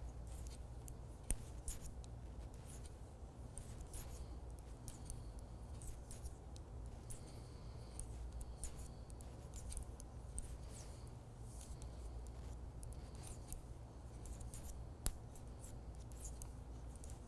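Circular knitting needles clicking and tapping softly as stitches are worked, with a couple of sharper clicks, over a low steady room hum.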